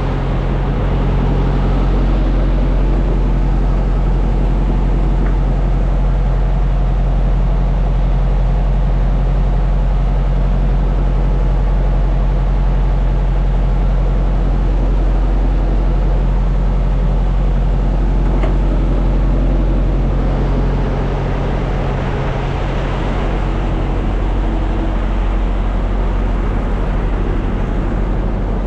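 Semi truck's diesel engine running steadily: a loud, even low drone with a constant hum. It eases slightly in level about two-thirds of the way through.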